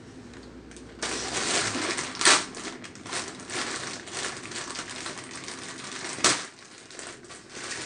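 Plastic courier mailer bag being crinkled and torn open by hand, with two loud rips, one about two seconds in and another about six seconds in.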